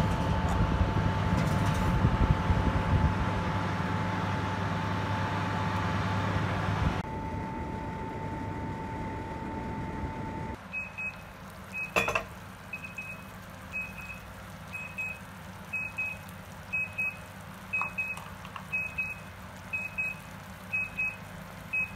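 An oven running with a steady fan hum, louder for the first several seconds. After a click it gives a run of short electronic beeps, about two a second, typical of an oven timer signalling that the roasting time is up.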